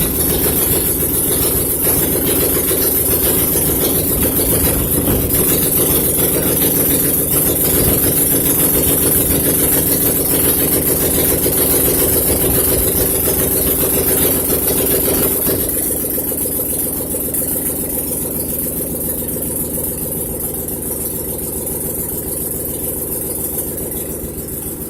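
Vehicle engine idling loudly and steadily. About fifteen seconds in it drops to a somewhat quieter, smoother idle.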